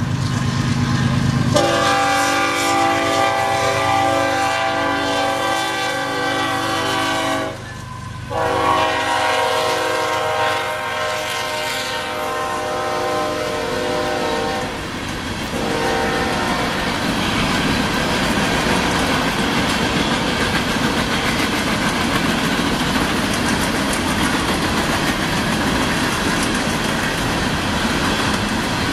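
A Nathan K5HL five-chime air horn on a Union Pacific freight locomotive blowing a long chord, breaking off briefly about eight seconds in, then a second long blast that stops about sixteen seconds in. After that, the steady rumble and clatter of covered grain hopper cars rolling past.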